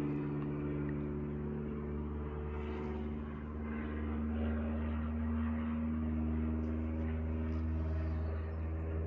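A steady low machine hum with several held tones, running without a break.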